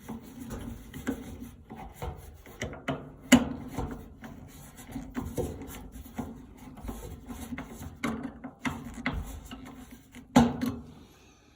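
Hands working on dryer parts: irregular knocks, clicks and scraping of plastic and metal parts and tools, with two sharper knocks about three seconds in and near the end. A steady low hum runs underneath.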